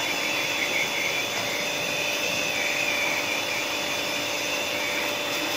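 H&L compact electric high-pressure washer (jet cleaner) running steadily with an even motor whine.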